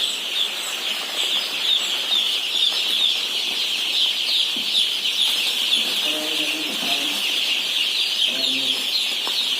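A flock of broiler chicks peeping without pause, many short high cheeps overlapping into one steady chorus.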